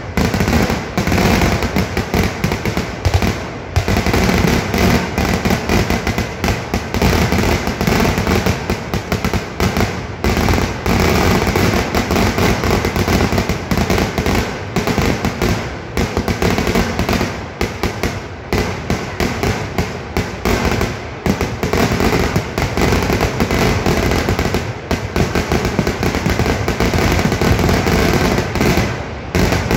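Festival fireworks barrage: ground salvos and aerial shells going off in a dense, unbroken run of bangs and cracks, with a few brief lulls.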